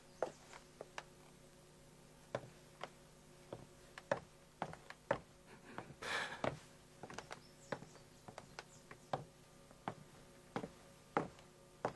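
Soft, scattered clicks and light knocks at irregular intervals, with a brief rustle about six seconds in.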